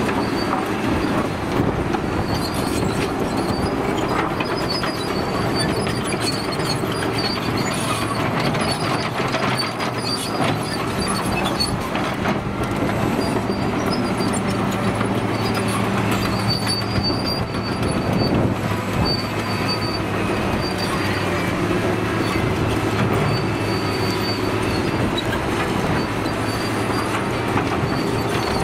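Caterpillar 953C track loader's diesel engine running steadily under load, with its steel tracks clattering and giving an on-and-off high squeal as it pushes dirt and rock.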